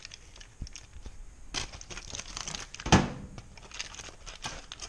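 Aluminium foil crinkling as it is pulled open by hand, in irregular crackles. A single sharp knock about three seconds in is the loudest sound.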